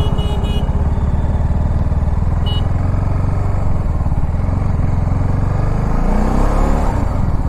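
TVS Apache RR 310's single-cylinder engine running steadily at highway cruising speed, heard from the bike itself, with a short high tone in the first half second and again briefly about two and a half seconds in.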